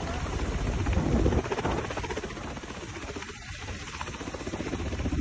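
Helicopter flying low, its rotor chop pulsing rapidly. It eases off in the middle and grows louder again near the end.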